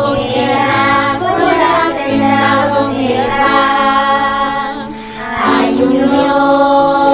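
Children's choir singing a Spanish Christian song in unison, with a steady instrumental accompaniment underneath. A phrase ends and the voices dip about five seconds in, then the next phrase begins.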